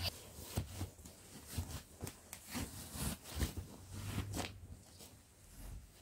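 Plastic clothes hangers clicking against each other and fabric garment bags rustling as they are handled, in a string of short irregular clicks and scrapes that die down near the end.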